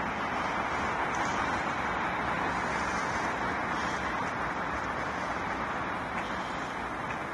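Steady city traffic noise, an even wash of sound with no single vehicle passing clearly.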